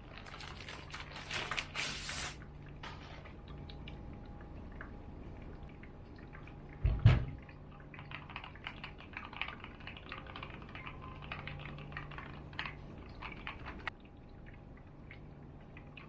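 Keys of a Keychron Q1 HE keyboard with Gateron magnetic Hall-effect switches being typed on: quick runs of key clicks, with a single heavier thump about seven seconds in.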